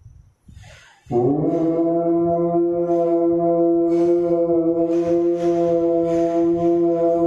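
Conch shell (shankh) blown in one long steady note, starting about a second in and held without a break, as part of the abhishek ritual.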